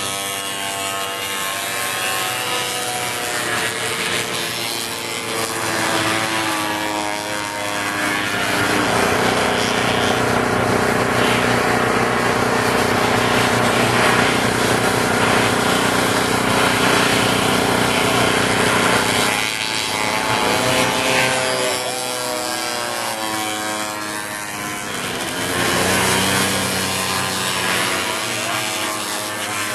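Racing snowmobile engines running at high revs as machines pass, their pitch sliding up and down repeatedly, with several engines overlapping.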